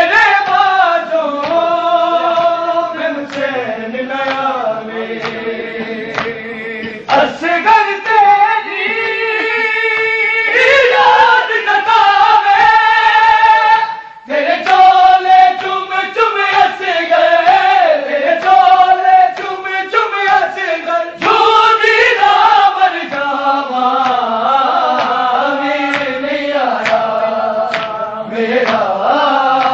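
Group of men singing a Punjabi devotional chant together in unison, with held, wavering notes and sharp percussive strikes in time. The singing breaks briefly about halfway through, then resumes.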